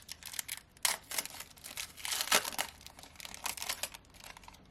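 Panini Prizm card pack wrapper crinkling and tearing, with the cards rustling and clicking as they are handled. The rustles and clicks come irregularly, loudest a little over two seconds in.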